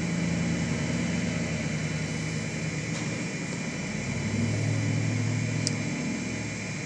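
3D printer running just after being switched on, its cooling fans giving a steady hum that shifts lower in pitch for a couple of seconds about four seconds in.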